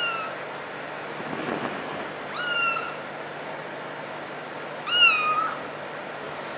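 A cat meowing three times in short, high-pitched calls, each rising and then dropping slightly; the third, about five seconds in, is the loudest.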